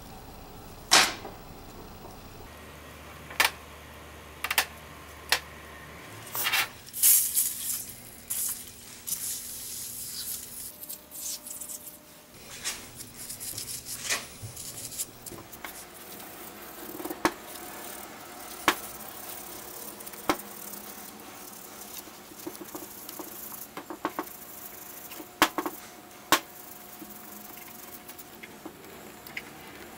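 A metal pick scraping and clicking against a threaded metal part of an old Blackhawk hydraulic bottle jack as caked grime is dug out, in scattered sharp clicks. About seven seconds in comes a stretch of brush scrubbing that lasts several seconds.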